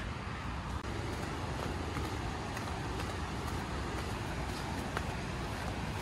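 Steady rushing of a waterfall and river below, a constant even roar, with a few faint footsteps on stone steps.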